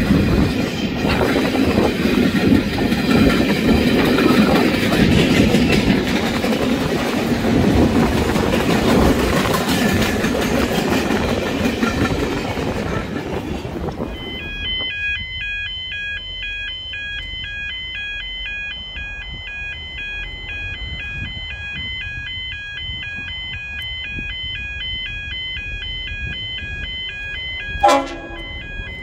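Steel freight train rolling past, wagons rumbling for about the first half. Then the sound changes abruptly to steady electronic chiming that repeats about twice a second, with a short, loud horn blast near the end.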